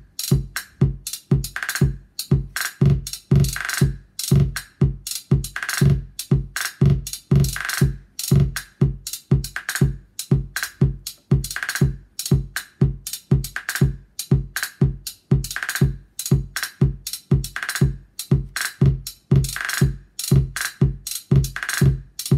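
Eurorack modular drum voices sequenced by a vector sequencer, playing a steady electronic beat. Deep kick hits land about two to three times a second, some in quick ratcheted repeats driven by an LFO from Maths, and a brighter snare-like hit comes about every two seconds.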